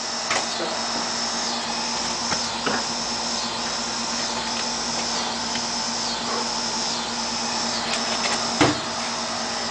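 Steady outdoor hiss with a high buzz that pulses about every three-quarters of a second and a faint low hum. There are a few faint knocks, and a single thump about eight and a half seconds in.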